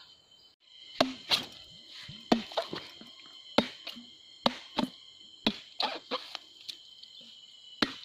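Machete blade chopping into a young green coconut, about eleven sharp, uneven hacks as the husk is split open.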